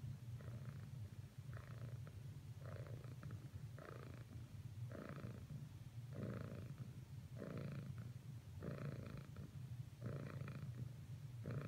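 Domestic cat purring: a steady low rumble that swells with each breath, about once every second and a bit.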